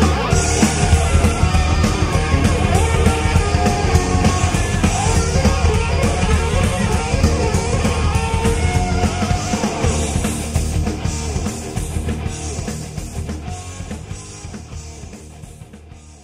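Heavy rock music with electric guitar and a drum kit, fading out over the last several seconds.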